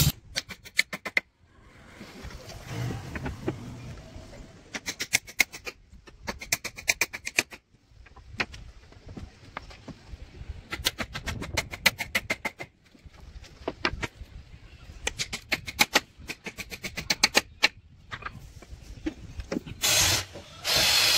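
Power drill-driver work on kitchen cabinet woodwork: several short runs of rapid, evenly spaced clicking, then the drill running louder near the end.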